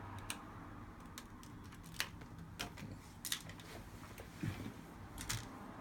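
Small sharp clicks and taps of a tool on an opened smartphone's internals, about half a dozen at irregular intervals, as its flex-cable connectors are worked loose.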